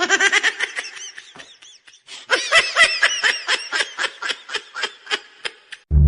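High-pitched laughter in a fast run of short pulses, about five a second, pausing briefly about two seconds in and then going on until it cuts off just before the end.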